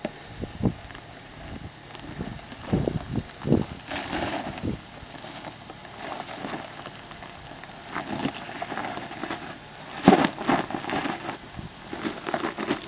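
Jeep Wrangler crawling slowly down a steep rocky trail: engine running low under irregular crunching and scraping of tyres and undercarriage over rock, with the loudest crunch about ten seconds in.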